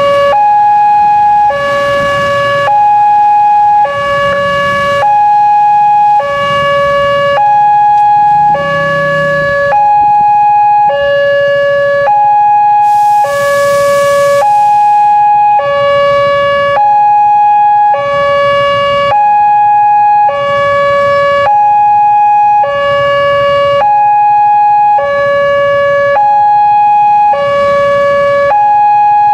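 Railway level-crossing warning siren alternating evenly between a low note (between C#5 and D5) and a high note (around G#5), switching about once a second. Motorcycle engines run underneath, and there is a short hiss about 13 seconds in.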